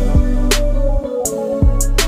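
Background music with a steady beat and a deep, sustained bass line.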